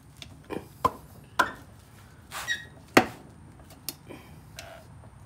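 Aluminium cylinder of a Polaris RZR 800 twin being wiggled down over its pistons onto the crankcase: a series of sharp metal knocks and clunks, the loudest about three seconds in, with a short scrape just before it.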